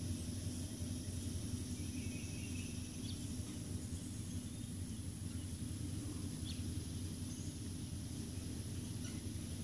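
Steady outdoor background noise in a yard: a low rumble, a thin steady high hiss, and a few short high chirps scattered through.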